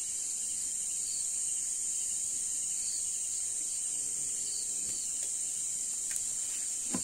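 Night insect chorus of crickets: a steady high-pitched trill, with a second insect chirping faintly about once a second.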